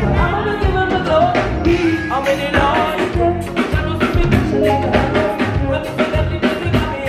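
Live band playing with a singer, drum kit and bass keeping a steady beat.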